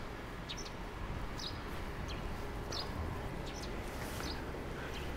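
Small birds chirping: short, high chirps about once a second over a steady low background noise.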